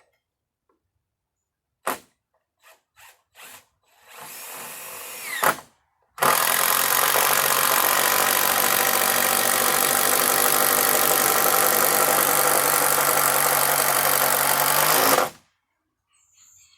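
Power drill running: a few clicks, then a short run of about a second and a half that rises in pitch, then a loud steady run of about nine seconds that cuts off sharply.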